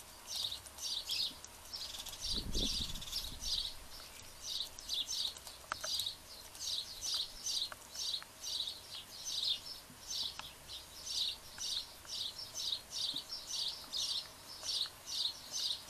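A small bird chirping over and over, in quick short clusters about twice a second. A brief low rumble comes about two and a half seconds in.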